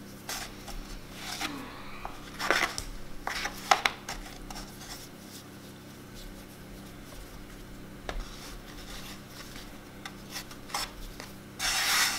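Hands working soft bread dough on a floured wooden board: scattered soft rubbing and brushing strokes with a few light knocks as the dough is knocked back and pulled apart. Near the end a longer brushing sweep of a hand across the floured board.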